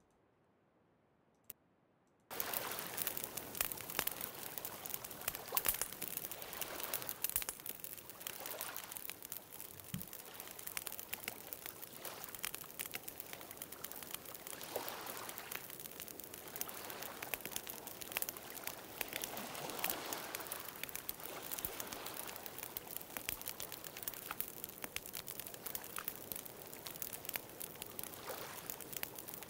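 Wood campfire crackling and popping, with the soft wash of lake waves swelling now and then behind it. It starts about two seconds in, after a short silence.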